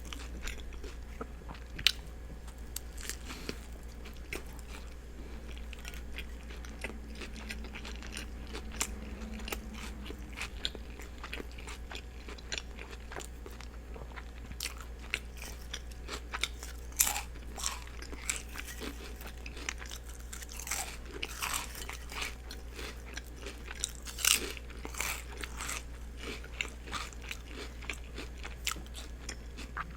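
Close-miked chewing and biting into a turkey and cheese sub with lettuce and onion: irregular crunches and mouth clicks, a few sharper bites standing out, over a steady low hum.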